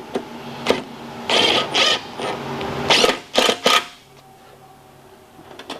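A screw being driven up through the UTV's aluminium roof to fasten the speaker bar, heard as short mechanical bursts: a longer one about a second and a half in, then three quick ones around three seconds in.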